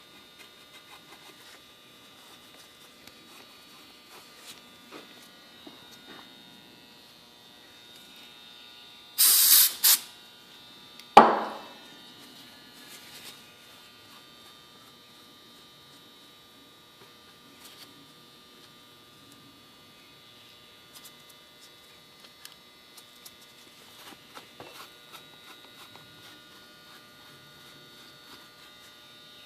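Steady electrical hum in a workshop, broken by two short loud hisses about nine seconds in, then a single sharp metallic clank that rings briefly, with scattered light clicks of small metal parts being handled.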